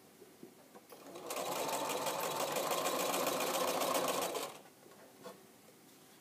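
Computerised sewing machine stitching a short run in a fast, even rattle. It starts about a second in, speeding up over a moment, and stops sharply after about three and a half seconds, with a few light clicks either side.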